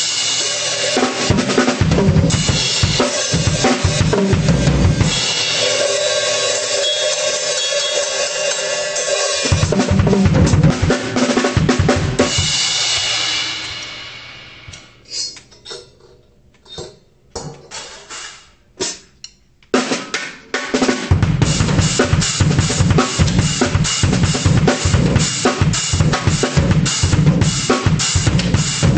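Acoustic drum kit being played: a beat on bass drum, snare and cymbals, with a stretch of cymbals alone. About halfway through a crash rings out into a quiet, sparse passage of a few light hits, and the full beat comes back in about three-quarters of the way through.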